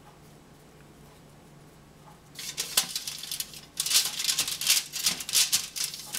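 Aluminium foil lining a baking tray crinkling and crackling under the hands as balls of dough are pressed and set down on it, in a series of rustling bursts starting about two seconds in.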